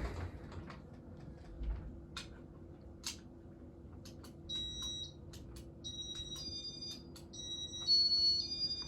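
Electronic control of a Casablanca ceiling fan giving a run of short high beeps at stepping pitches, starting about halfway through and growing busier toward the end, as demo mode is set going. Before that come a few sharp clicks, and a low steady hum runs underneath.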